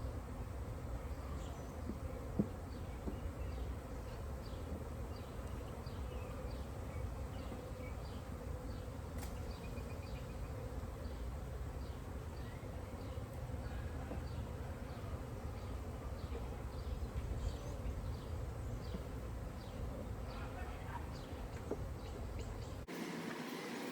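A mass of honeybees from a 3-pound package, just shaken into a top-bar hive, buzzing in a steady hum over a low rumble. The sound changes abruptly near the end.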